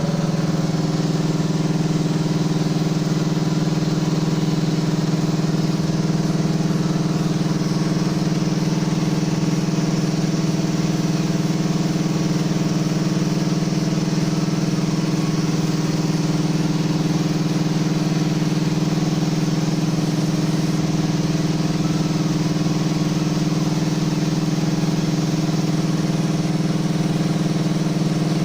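Electric piston air compressor running steadily, an even machine hum with no change, as it pumps up its receiver toward cut-off pressure.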